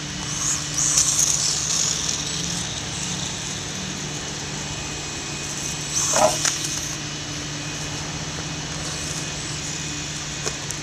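Losi Micro Desert Truck, a small brushless RC truck, driving on asphalt with a high whir that swells twice. A short clatter about six seconds in as it reaches the ramp is the loudest sound.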